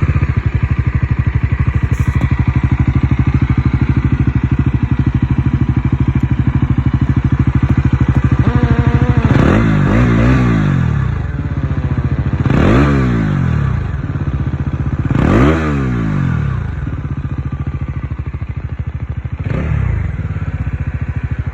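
Bajaj Pulsar NS400's single-cylinder engine through its stock exhaust, loud, idling steadily and then revved in four quick throttle blips from about nine seconds in, each rising and falling back to idle.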